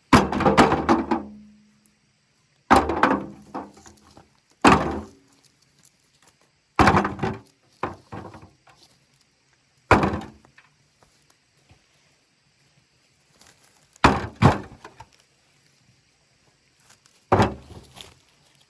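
Heavy chopping blows into wood, about one every two to three seconds, each a sharp thunk that dies away quickly; at one point two blows land close together.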